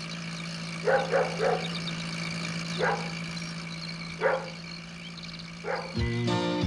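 A dog barking: three quick barks about a second in, then three single barks spaced more than a second apart, over the steady low hum of a small van's engine as it drives away. Music starts near the end.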